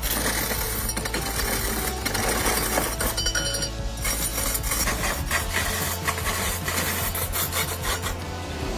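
A hand gouge cutting a large log spinning on a wood lathe: a continuous rasping, scraping noise of the tool shaving the wood, over a steady low hum.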